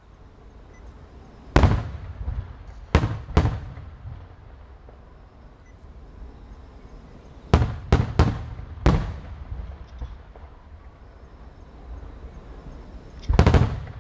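Aerial firework shells bursting: sharp booms, each with an echoing tail, in irregular groups. One comes about a second and a half in, a pair at about three seconds, a quick run of four near the middle, and a close double near the end.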